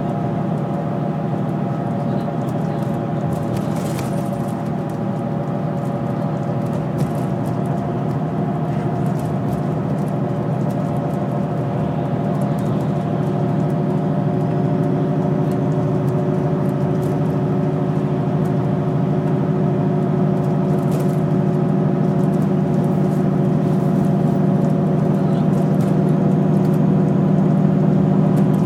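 Inside a bus cruising at motorway speed: a steady drone of engine and tyre noise with a constant low engine hum, getting a little louder in the second half.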